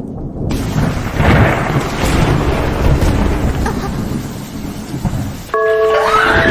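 Thunder rumbling over steady rain, a storm effect. About five and a half seconds in it cuts to music with held notes and a gliding tone.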